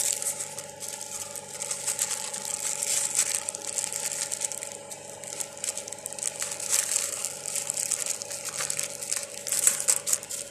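Outdoor refrigeration condensing unit running with a steady hum, under irregular crackling and rustling close to the microphone.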